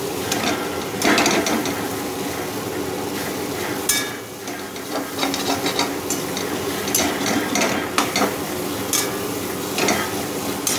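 Pumpkin cubes and ground spices frying in oil in a steel kadai, with a metal slotted spatula scraping and clinking against the pan as the masala is stirred and fried down. Light sizzling runs under the irregular scrapes.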